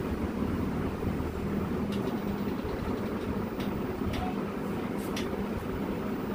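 Steady low rumbling background noise, with a few faint light clicks about two, three and a half, four and five seconds in.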